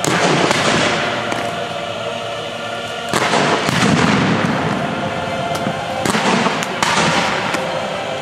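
Fireworks bursting: a sharp bang at the start and another about three seconds in, then a quicker run of bangs and crackling around six to seven seconds in.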